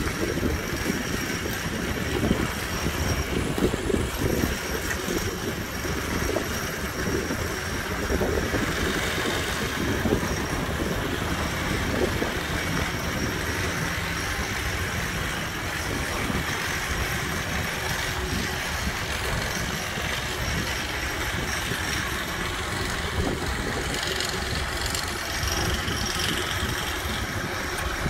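Diesel engine of a Hidromek 102 S backhoe loader running steadily.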